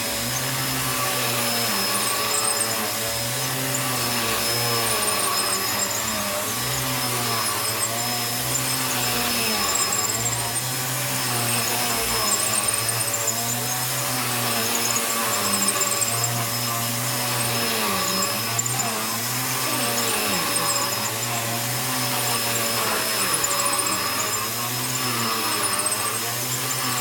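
Bissell PowerClean upright vacuum running over the back of a thick, upturned rug. Its motor keeps a constant high whine while its pitch rises and falls in a steady rhythm, about once a second, as the load changes.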